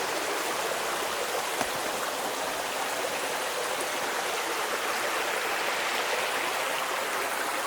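Steady rush of water from Spoon Creek Falls and the creek below it: an even hiss with little deep rumble, unchanging throughout.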